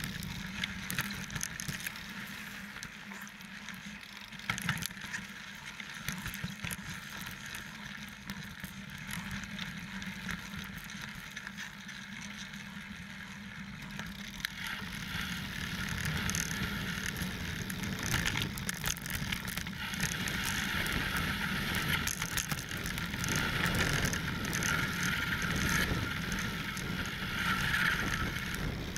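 Mountain bike (29er) riding over a rocky dirt trail: tyres rolling on dirt and stones, with scattered knocks and rattles from the bike. The rolling noise grows louder and hissier about halfway through.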